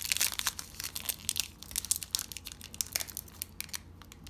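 Foil wrapper of a Panini Illusions football card pack crinkling and tearing as it is pulled open by hand: a dense run of crackles at first, then scattered crinkles.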